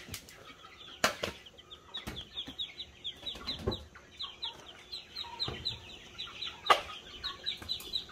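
Young chicks peeping: a dense run of short, high, falling peeps, several a second. A few sharp knocks come through, the loudest late on.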